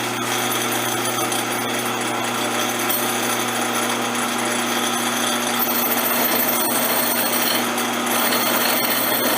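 Bench grinder running while a steel mortising chisel is ground against the side of its worn, chewed-up wheel: a steady motor hum under continuous grinding noise.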